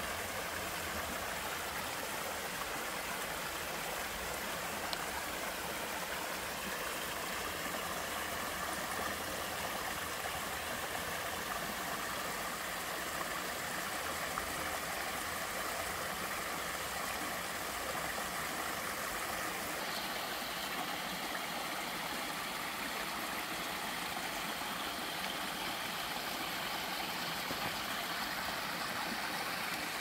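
Shallow mountain stream running over mossy rocks and down a small two-step sliding cascade: a steady, even rush and splash of water.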